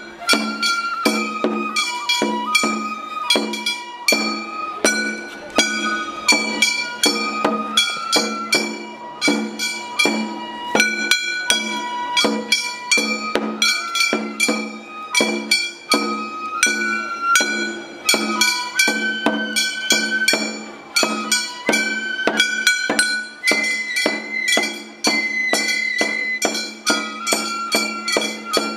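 Gion Festival hayashi music: a bamboo flute plays a stepping melody of held notes over regular metallic strikes of small hand gongs and drum beats.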